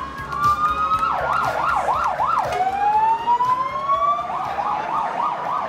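Fire truck's electronic siren switching between modes: a slow rising wail, then a fast up-and-down yelp, another slow rising wail, and a quicker yelp near the end.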